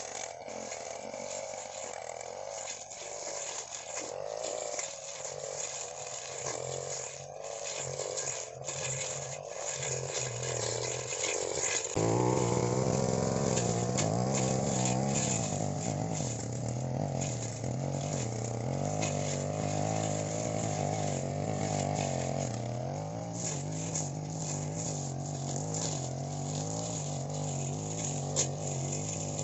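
Backpack brush cutter engine running while its blade cuts through grass and weeds, its pitch wavering up and down as the load changes. It turns suddenly louder about twelve seconds in.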